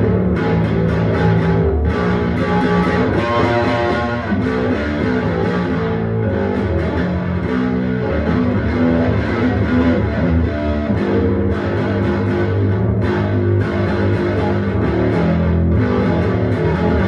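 Electric bass guitar played along with a heavy rock song, guitars and drums filling the mix.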